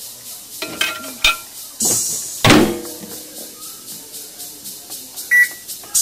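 Whirlpool microwave oven being loaded and set: a few small clicks and rattles, then the door shutting with a clunk about two and a half seconds in. A single short keypad beep comes near the end.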